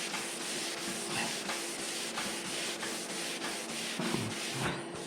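Abrasive sanding sponge rubbing over the painted surface of a Lambretta GP side panel in a steady run of short strokes. It is scuffing the shiny clear coat to a matt finish so the next coat of clear will stick.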